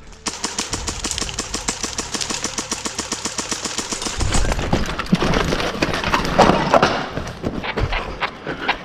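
Airsoft gun firing one long rapid full-auto burst for about four seconds, laying down covering fire. It is followed by irregular knocks and scuffling.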